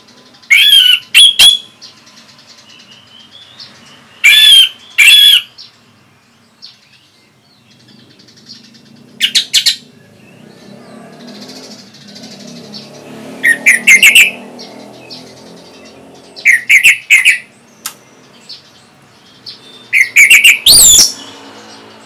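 Orange-headed thrush (anis merah) singing: six loud, short phrases of gliding whistled notes, a few seconds apart, with pauses between.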